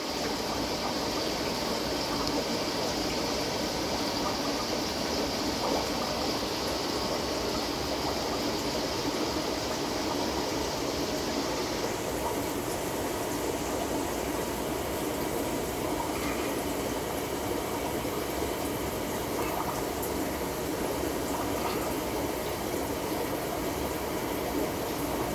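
Steady running and trickling of aquarium water from a fish tank's circulation, with the higher hiss in it dropping away about halfway through.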